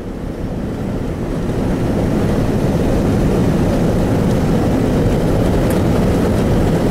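2000 truck's 6.0-litre V8 and road noise under acceleration, the loudness climbing over the first second or two, then holding steady. The engine is pulling strongly now that a crank relearn has cured its lack of power and failure to rev.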